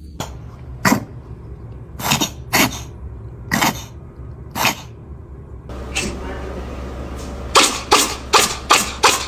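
Cats sneezing repeatedly: short, sharp sneezes roughly a second apart. Near the end comes a rapid string of sneezes, several a second.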